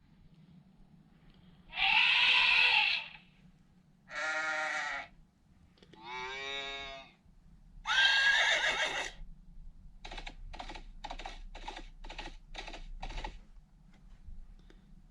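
A run of comic sound effects: four separate pitched cries of about a second each, then eight quick even pulses at about three a second.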